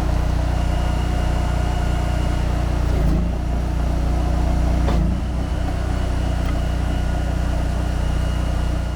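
Honda GX800 V-twin engine running steadily on a log splitter, with two brief louder moments about three and five seconds in.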